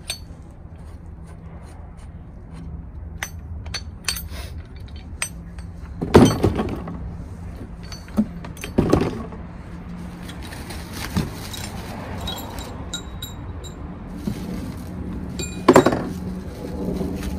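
Steel stabilizer arms of a drop-hitch kit clinking and knocking against each other and the cardboard box as they are handled and set down among the parts. There are scattered light clinks and a few louder knocks, about six, nine and sixteen seconds in.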